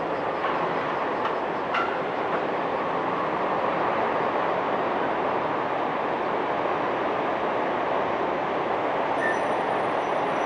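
Steady, loud mechanical rumble that runs on unbroken, with a short click about two seconds in and a few faint high chirps near the end.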